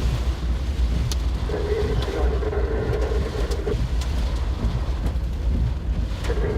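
Steady low rumble of a moving vehicle heard from inside the cabin, with wind noise. A steady mid-pitched tone sounds from about a second and a half in for about two seconds, and there are a few faint clicks.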